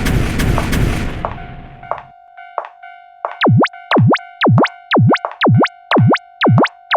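Electronic music with a steady beat fades out over the first couple of seconds. Then a steady electronic tone holds underneath while a synthesized cartoon sound effect repeats about eight times, each a fast pitch dive and swoop back up, about two a second.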